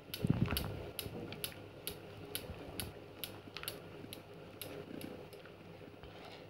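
Wooden spatula stirring thickening milk and milk powder in an aluminium kadhai, scraping the pan with light ticks about twice a second, with a heavier knock against the pan about half a second in.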